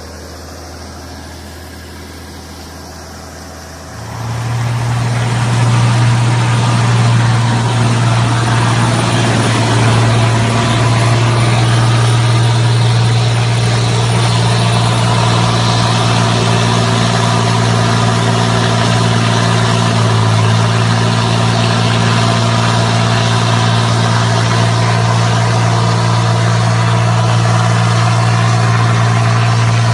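Mitsubishi L200 Triton pickup's engine running at a low idle, then revved up about four seconds in and held at high, steady revs under heavy load.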